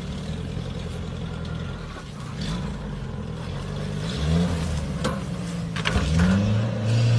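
An engine running steadily, revving up twice, about four seconds in and again near the end, with a few sharp knocks between the revs.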